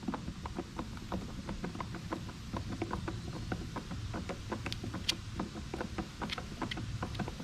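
Small irregular clicks and ticks, a few a second, of a screw being driven by hand to fasten a plastic part to the Sun Joe SPX3000 electric pressure washer's housing.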